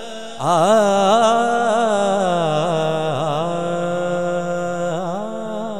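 A man singing durood (salawat) in naat style, in long ornamented runs that begin about half a second in, then settling into a long held note.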